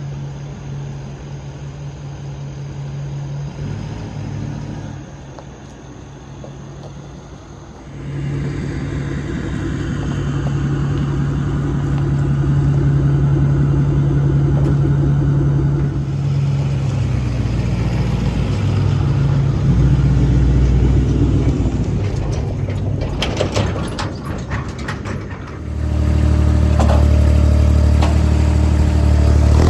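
Engine running at varying speeds in several separate clips, the engine note changing abruptly about 8, 17 and 25 seconds in, with a short run of knocks or clatter just before the last change.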